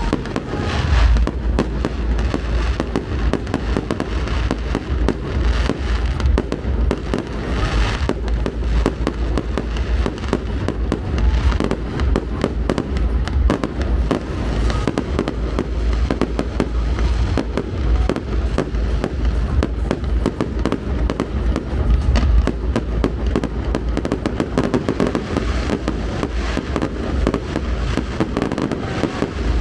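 Fireworks display: shells bursting in quick, overlapping succession, deep booms mixed with sharp cracks and crackle, with no pause.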